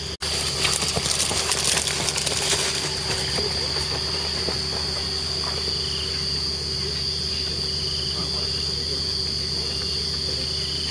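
Night insects trilling steadily at one high pitch, over a low steady hum.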